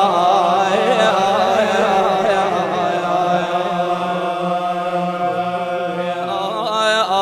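A man's voice singing a Shia Husseini lament, drawing out one long note with wavering ornaments between lines of the verse. The note bends and trembles at first, holds fairly level through the middle, and swings into fresh ornaments near the end.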